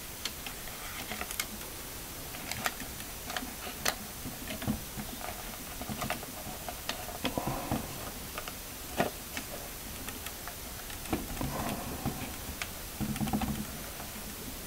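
Irregular small clicks and taps, with faint rustling of paper: 120 roll film's backing paper being threaded onto the take-up spool of an Agfa Billy Clack folding camera and wound on by its knob.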